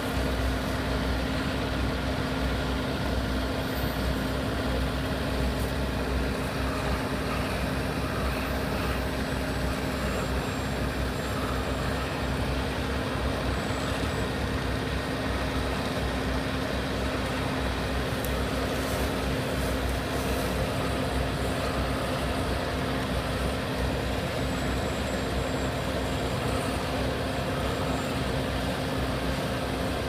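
Diesel engines of a dump truck and an asphalt paver running steadily together while paving, the truck tipping asphalt into the paver's hopper: an even, unbroken drone with no distinct knocks or changes.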